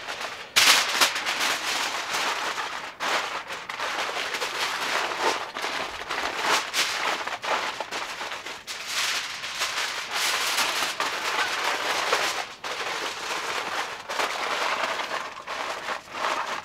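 Aluminium foil crinkling and crackling as gloved hands fold and press it tightly around a brisket, on and off, loudest about half a second in.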